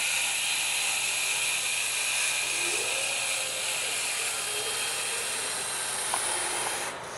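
Battery-powered urethane caulking gun running steadily as it lays a bead of urethane around a truck's windshield frame, shutting off suddenly near the end.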